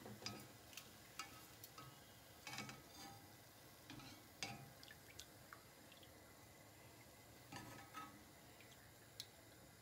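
Faint, scattered clinks of a steel perforated skimmer against an iron kadai, with light drips, as fried murukku is lifted and drained. The oil has stopped bubbling, the sign that the murukku is cooked through.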